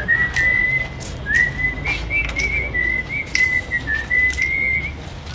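A person whistling a slow tune, the single high note wavering and stepping up and down, with a few light clicks over a low steady hum.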